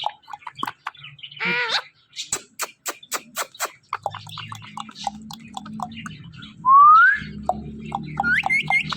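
Ringneck parrot whistling and chirping: a run of quick short chirps and clicks, a warbling call about a second and a half in, and a loud rising whistle about seven seconds in.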